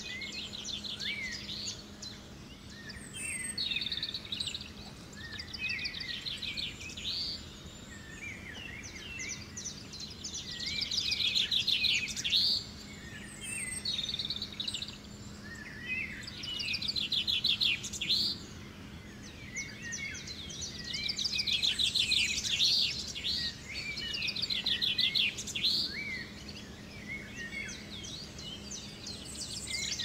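A flock of house sparrows chirping and chattering in repeated bursts of rapid high chirps, loudest about midway and again in the second half. A faint steady low hum runs underneath.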